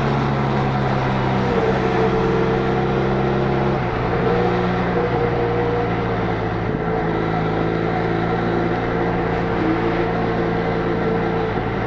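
Benelli Leoncino 500's 500 cc parallel-twin engine on its stock exhaust running steadily at highway speed, with wind and road noise. The engine note holds nearly constant, easing slightly about four and seven seconds in.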